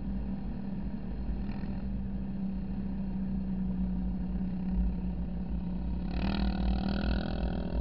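Vehicle engine and tyres droning steadily while driving on beach sand, heard close from a camera on the bonnet. About six seconds in, a second, higher engine sound swells in and lasts over a second.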